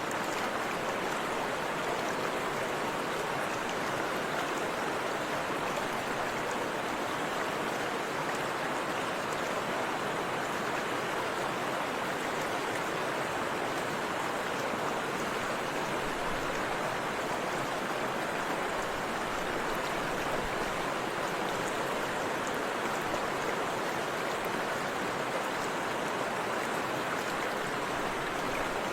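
Forest river running, a steady, unbroken rush of flowing water.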